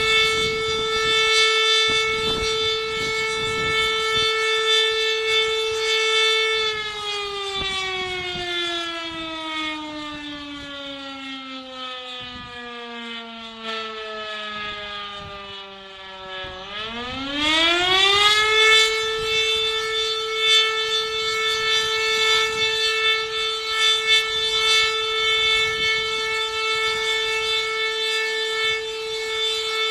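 Fire station's electromechanical alarm siren calling out the volunteer fire brigade: a steady howl that winds down in pitch for about ten seconds, then spins quickly back up to full pitch and holds steady again.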